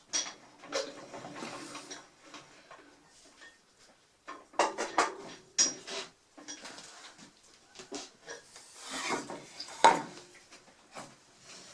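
Irregular knocks, clatter and scraping of wood and metal being handled around a stopped table saw, with the sharpest knock about ten seconds in.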